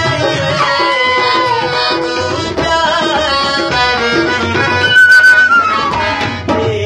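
Instrumental South Asian folk music: a harmonium and a wooden flute, whose melody glides between notes, over a steady drum rhythm.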